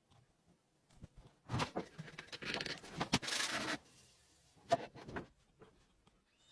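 Irregular rubbing and scraping in a few uneven bursts, the longest lasting about two seconds, as of something being rubbed or sanded by hand.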